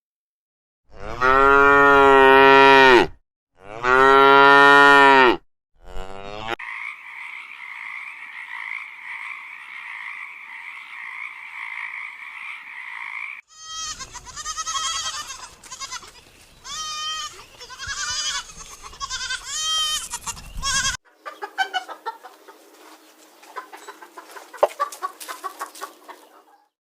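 Cattle mooing: two long, loud, low moos about a second apart. After them come other animal sounds: a steady high-pitched chorus for several seconds, then a run of short repeated calls, then a busy stretch of clicks and chatter.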